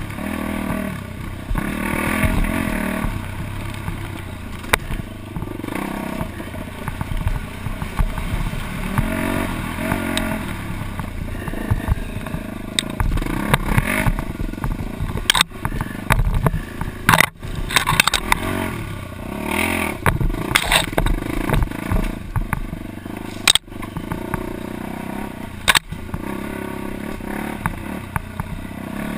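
Dirt bike engine revving up and down over and over as the bike is ridden hard along a rough trail, heard up close from a helmet-mounted camera.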